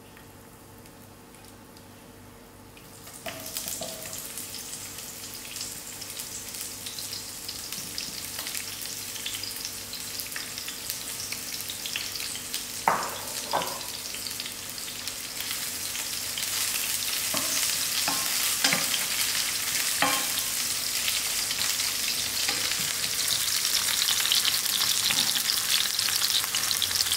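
Sliced onion sizzling in hot oil in a frying pan: the sizzle starts suddenly about three seconds in and grows steadily louder. A few knocks of a spoon stirring against the pan come in the middle.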